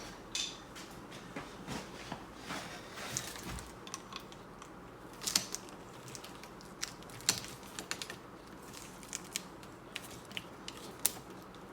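Scattered light clicks and taps of pliers and metal hose fittings being handled and worked onto a pressure washer's connection, at an irregular pace.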